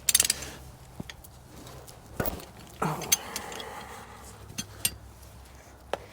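Metal clinks and taps of hand tools on a Caterpillar 977L track loader's final drive as a plug is worked loose: a quick burst of clinks at the start, then scattered single clicks.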